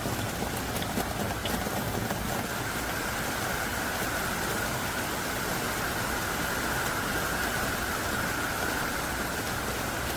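Heavy rain pouring down in a steady, dense hiss, with no breaks or single drops standing out.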